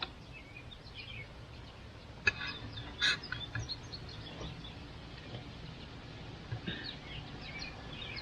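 Two short metallic clicks, about two and three seconds in, from a flat-faced hydraulic quick-coupler being pushed and worked by hand as it refuses to release from the tractor's third-function valve, over quiet outdoor background with faint birdsong.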